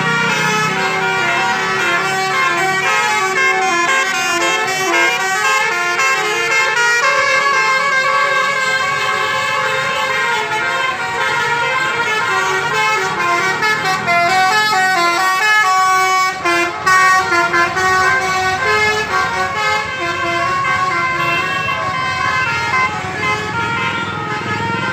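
Telolet musical air horns on Basuri coaches playing tunes of quick stepped notes, one melody after another, over street traffic.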